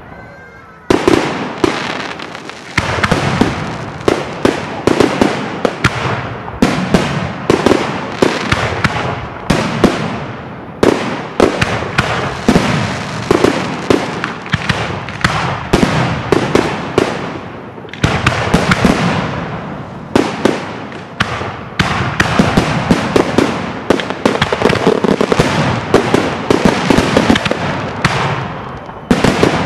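Aerial firework shells bursting in a dense, continuous barrage of sharp bangs and crackles, starting about a second in.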